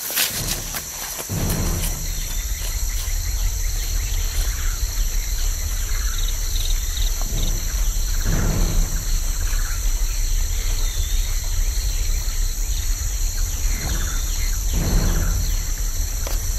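Jungle insects, crickets or cicadas, keep up a steady high-pitched drone over a strong low rumble. Three louder rushes of noise come about six seconds apart.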